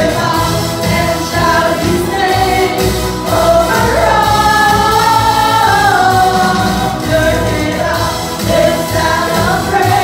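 Live contemporary worship song: a small band with electric guitar backing several singers on microphones, with a group of voices singing together.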